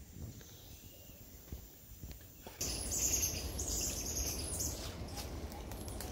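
Rainforest ambience: quiet at first, then about two and a half seconds in it turns louder, with a steady hiss and high-pitched bird-like chirps and whistles that are thickest just after the change.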